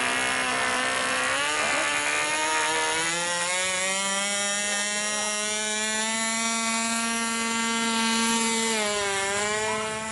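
Small model airplane engine running at high speed: a steady, high buzzing drone that climbs a little in pitch a couple of seconds in and dips briefly near the end.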